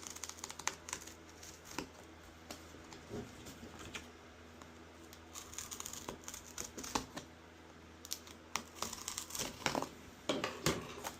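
Packaging crinkling and rustling as it is pulled open by hand, in scattered small crackles that grow busier near the end.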